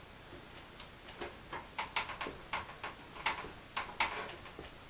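Screwdriver tightening a screw into a PC's graphics card mounting: a run of small, irregular clicks starting about a second in, two or three a second.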